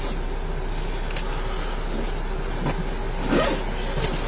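Steady vehicle noise with rustling against the microphone, and a brief squeaky sound about three and a half seconds in, the loudest moment.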